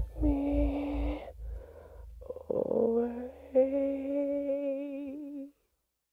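Background music ending: sustained sung or played notes, the last one held with vibrato, then a sudden cut to silence about five and a half seconds in.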